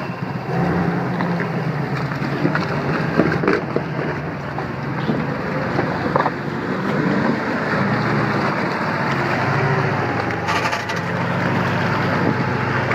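Heavy truck engine running hard under load: a steady, loud drone that wavers slightly in pitch, with a few short knocks and clatter.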